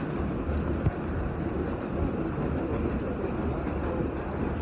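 R46 subway car running at speed on elevated track, heard from inside the car: a steady rumble of wheels and motors, with one sharp click about a second in.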